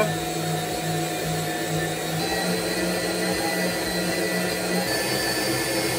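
Electric stand mixer running steadily at medium-high speed, its whisk beating egg whites and hot syrup into a thick marshmallow meringue.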